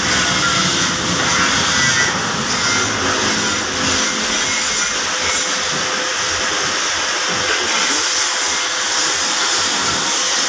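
A power tool running steadily with a continuous whirring hiss, used as the transmission casing bolts are fitted.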